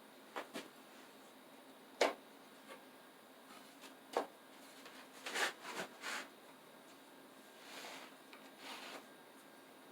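Light knocks and clicks of wooden cabinet parts being handled and fitted, scattered and irregular, the sharpest about two seconds in and a quick cluster a little past the middle, with two soft rustling swells near the end.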